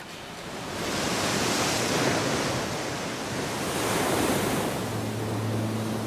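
Rough seawater churning and washing, a steady rush that swells twice. A low steady hum comes in near the end.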